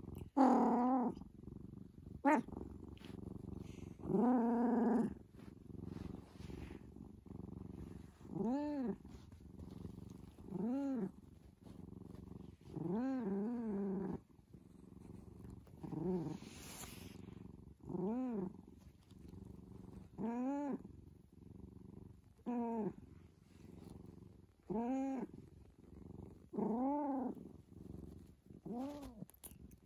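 Domestic tabby cat purring steadily while giving short, sleepy meows about every two seconds, each rising and then falling in pitch: a drowsy cat chattering as it wakes.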